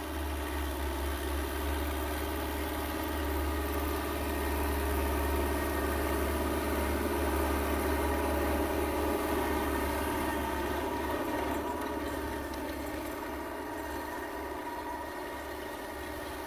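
New Holland 850 tractor's diesel engine running steadily under load, pulling a rotavator that churns the soil. The drone grows a little louder through the middle and fades somewhat toward the end.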